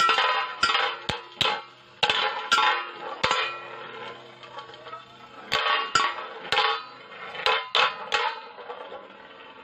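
Two Beyblade Burst spinning tops, Victory Valkyrie and Gravity Destroyer, clashing as they spin in a metal bowl: a run of sharp metallic clinks, each with a brief ring. The hits come in two clusters, one at the start and one from about five and a half to eight seconds in, with a quieter gap between.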